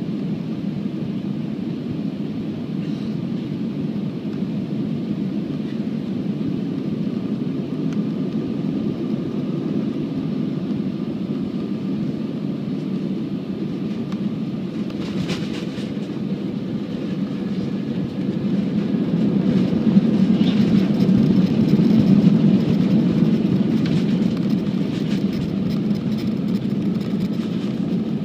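Cabin noise of an Airbus A330-300 landing: a steady low rumble of engines and airflow, a short rattling jolt about halfway through as the wheels meet the runway, then the rumble swells louder for several seconds as the airliner rolls out and slows.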